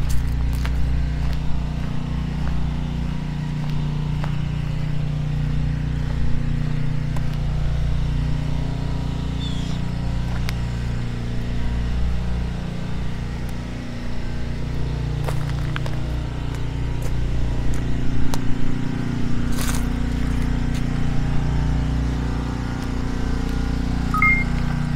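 A steady low engine drone runs throughout, with light footsteps and small scrapes on pavement.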